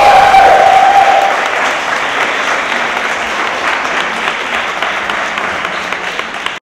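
Audience applauding, the clapping slowly fading and cutting off suddenly near the end. The last held note of orchestral ballet music dies away in the first second.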